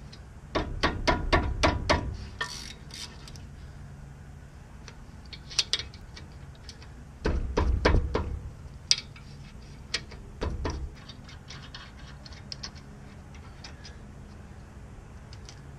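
Ratchet wrench clicking in quick runs, three separate times, as the bolts of a brake caliper are loosened and backed out. Scattered light metal clicks and clinks fall between the runs.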